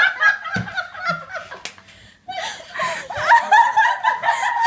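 A group of people laughing and giggling together. The laughter breaks off briefly about two seconds in, then comes back louder.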